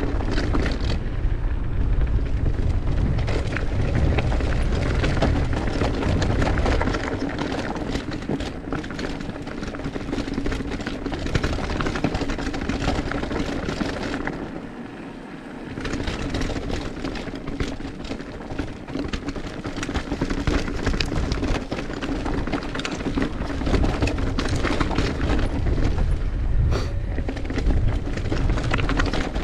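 Mountain bike riding down a rough dirt trail: wind rumbling on the camera microphone, with the tyres, chain and frame rattling and clattering over bumps and rocks. The rumble is heaviest in the first several seconds, and everything eases off briefly about halfway before picking up again.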